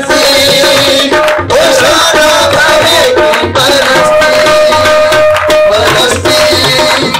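Loud worship song: hand drums beat a quick, steady rhythm under held melody notes, with a voice singing in places.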